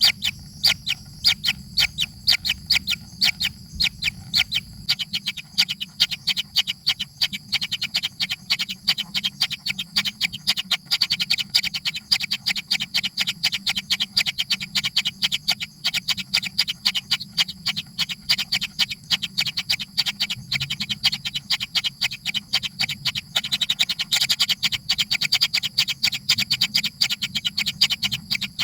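Baby birds calling without pause, a fast, steady run of short chirps, several a second, crowding closer together near the end; typical begging calls of nestlings waiting to be fed.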